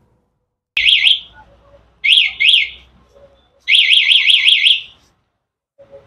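HJG remote centre-lock motorcycle alarm siren chirping: two quick up-and-down chirps, two more about a second later, then a run of about six rapid warbling sweeps.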